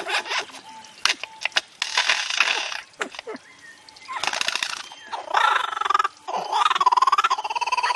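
A bird giving a series of harsh, noisy calls and clucks, then, from about halfway through, a longer pitched call with a rapid pulsing quality.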